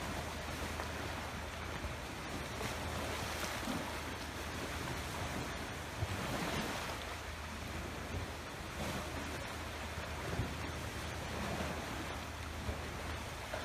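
Small waves washing steadily against a rocky shore, with wind rumbling on the microphone. A couple of sharp little taps stand out, about six and ten seconds in.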